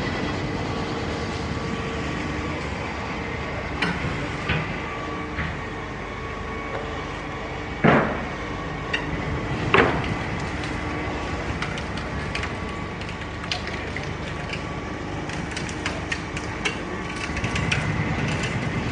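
Large Cat crawler excavator with its diesel engine running steadily, with scattered clanks and knocks, two loud ones about eight and ten seconds in, and a run of light clicks near the end.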